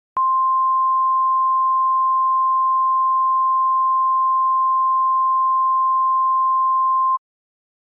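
Emergency alert attention tone: one steady, high-pitched electronic beep held for about seven seconds, then cut off sharply. It announces the emergency broadcast message that follows.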